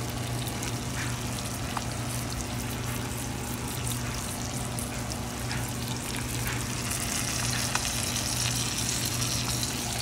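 Striped bass fillets frying in canola oil and butter in a cast iron skillet: a steady sizzle with a few small pops, over a steady low hum.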